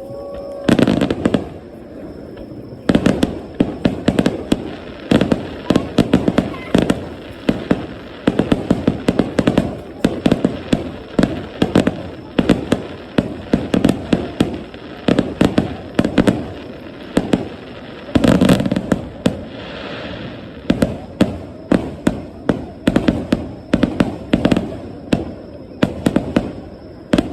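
Fireworks display: a rapid barrage of shell bursts and crackling reports, several bangs a second with hardly a pause.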